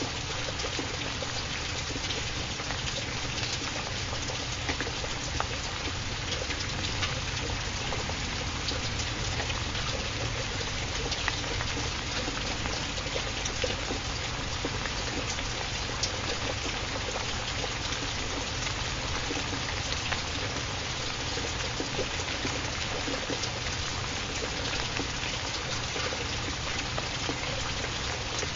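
Recorded rain falling steadily: an even hiss with many scattered sharp drop sounds.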